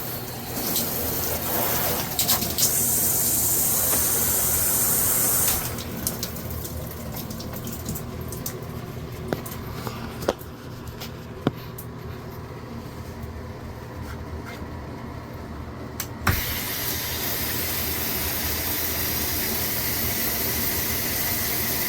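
Water spraying from a VXV dual shower system (square rain head and handheld), its sound changing as the outlets are switched: a loud hiss of spray for a few seconds, then a quieter trickle and patter with a few sharp clicks, then after a click a steady rush of water that continues.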